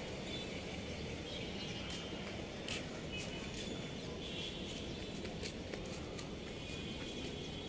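Open-air outdoor ambience: a steady low background noise with faint bird chirps and a few short, sharp high clicks scattered through it.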